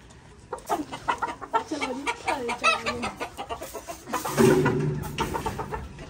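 Chickens clucking and squawking in a run of short calls, with a louder, rougher burst of sound about four seconds in.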